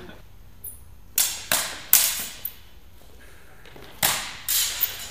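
Training swords clashing and striking in a sparring bout: a flurry of about four sharp clacks about a second in, then another quick flurry near the end, each echoing in the large hall.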